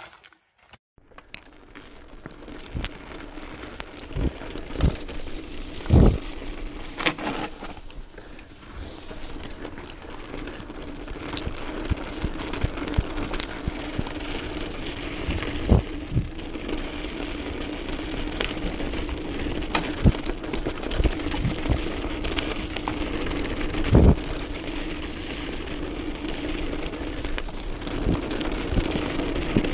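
Mountain bike riding fast down a dirt and gravel trail, heard from a handlebar-mounted camera: a continuous rush of tyre noise and wind, with frequent sharp knocks and rattles as the bike hits bumps. It starts about a second in, after a brief silence.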